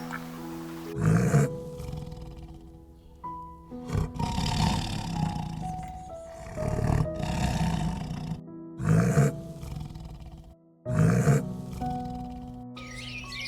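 A large animal roaring, about five loud calls a couple of seconds apart, over background music.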